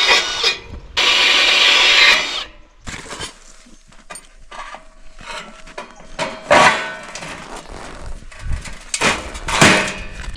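A power tool runs in two short bursts in the first couple of seconds, then stops. It is followed by quieter handling noise and a few sharp knocks.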